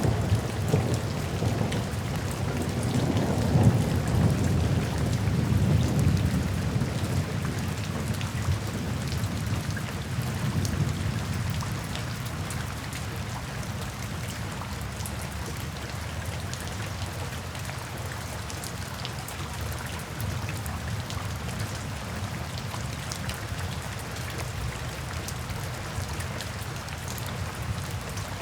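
Steady rain falling, with a low rolling thunder rumble through the first ten seconds or so that gradually fades, leaving the rain alone.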